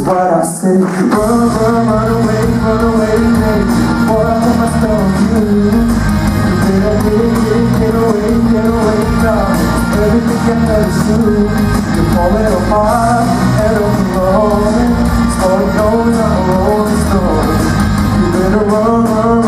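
A man singing a melody into a handheld microphone over music, amplified through a PA.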